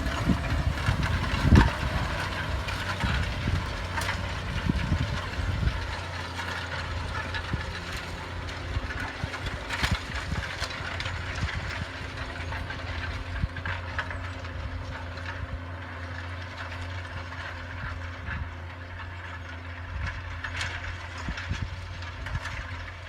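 New Holland TM155 tractor's six-cylinder diesel engine running steadily, with scattered clanks and rattles and heavier knocks in the first few seconds.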